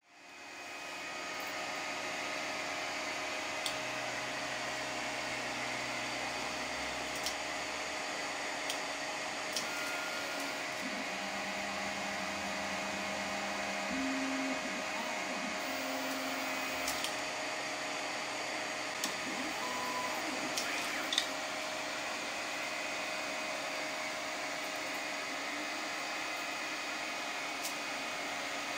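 A 3D printer running a print: a steady whir of its cooling fans, with the stepper motors humming at pitches that shift every few seconds as the print head moves, and a few faint clicks.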